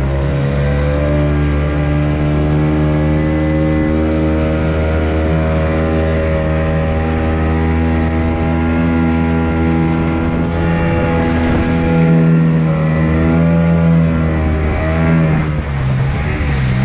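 Outboard motor of a small fishing panga running at speed, a steady engine note over the rush of the hull through the water. Its pitch climbs in the first second, then dips and wavers a few times near the end as the throttle eases and picks up.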